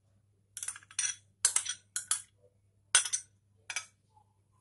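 A steel spoon scraping and clinking against bowls as diced tomato is scraped into a bowl of chopped onion, in about six short strokes with pauses between.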